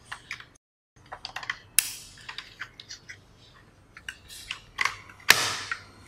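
Small clicks and taps of plastic-housed circuit boards and a network cable plug being handled on a tabletop as the cable is plugged into the board's port, with a sharper click near two seconds and a louder clatter a little after five seconds.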